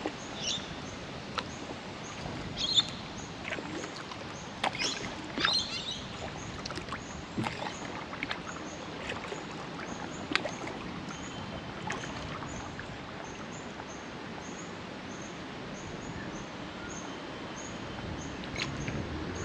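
Rainbow lorikeet giving a few short screeching calls in the first six seconds, over the dip and drip of kayak paddle strokes on calm water.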